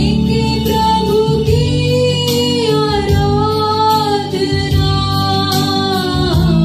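A woman sings a Hindi Christian worship song into a handheld microphone, holding long notes that slide in pitch, over instrumental accompaniment with steady low notes and a few light percussion hits.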